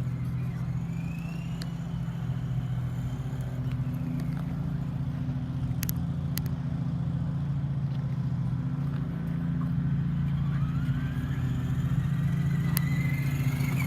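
A Traxxas Slash RC truck's onboard engine sound module plays a steady simulated engine drone. A faint rising whine comes in twice as the truck speeds up.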